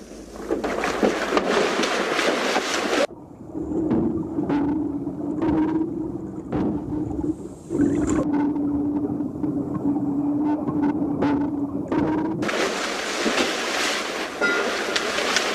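Water splashing and churning at the surface. It is broken for about nine seconds by a muffled stretch with a steady low hum.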